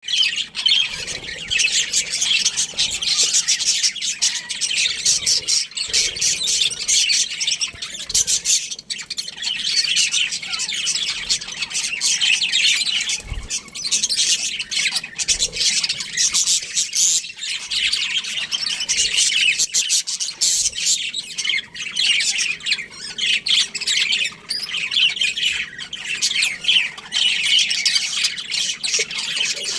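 A colony of budgerigars chattering and chirping all at once, a dense, unbroken high-pitched twittering from many birds.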